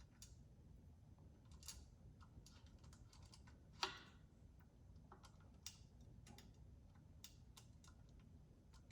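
Faint, scattered clicks and taps of small laser engraver parts being handled and shifted into place on the frame, with one sharper click about four seconds in.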